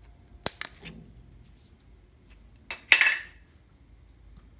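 Hard plastic clicking and clattering as a clear plastic slime container is handled: a few sharp clicks about half a second in, then a louder clatter around three seconds in.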